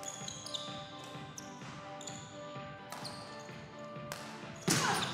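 Background music with held notes, over volleyball play in a sports hall: sharp ball hits and bounces about a second apart, the loudest one near the end.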